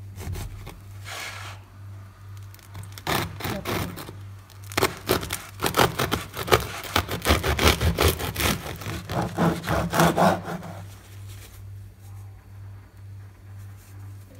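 A knife sawing through a crusty baguette on a wooden cutting board. The crust crackles with each stroke from about three seconds in until about eleven seconds in, then the cutting stops. A low steady hum lies underneath.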